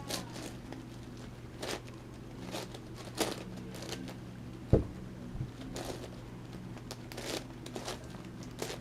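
Layers of an 11x11x11 Rubik's cube being turned by hand, making irregular short plastic clicks and scrapes, with one louder dull knock nearly five seconds in.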